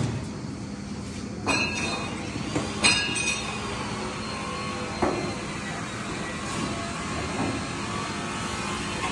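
Sheet-metal belt guard being handled and fitted over a mixer's pulley and belt: a few ringing metallic clanks, the sharpest about one and a half, three and five seconds in, over a steady background rumble.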